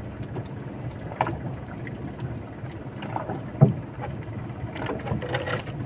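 Steady low water-and-wind noise around a small fiberglass fishing boat sitting on open water, with a few faint short knocks.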